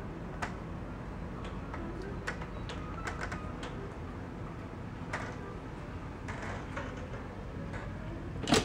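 A steady low hum with scattered light clicks, then a sharp click near the end as the bathroom door's lever handle is pressed and the latch releases.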